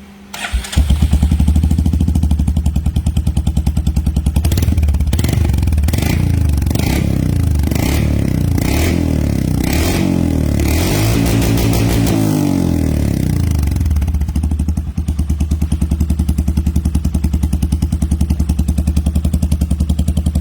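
Royal Enfield Hunter 350's single-cylinder engine through a short-cone full-system aftermarket exhaust: it starts about a second in, is blipped several times and revved a little longer, then settles back to a steady, evenly pulsing idle.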